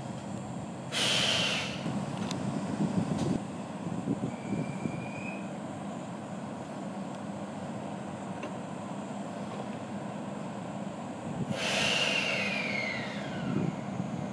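E751 series electric train standing with its on-board equipment running as a steady low hum. Compressed air hisses out twice, briefly about a second in and for longer near the end, the second burst with a falling whistle, as from the air brakes releasing.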